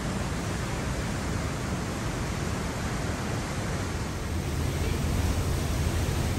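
Steady rushing roar of a large waterfall plunging through a narrow rock gorge, growing a little louder and deeper about four seconds in.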